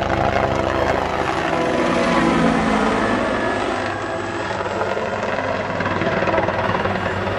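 CH-146 Griffon twin-turbine helicopter flying low past, its main rotor beating steadily over the engine noise. The pitch drops about two seconds in as it passes by.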